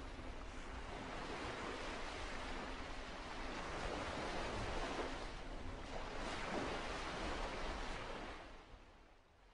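Sea waves washing onto a beach, a steady rushing surf that swells in the middle and fades away near the end.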